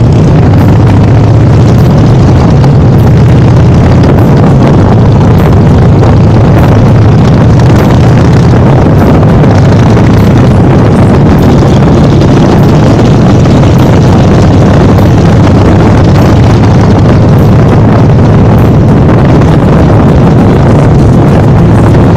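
Motorcycle engine running steadily at cruising speed, loud, with wind rushing over the microphone on the moving bike.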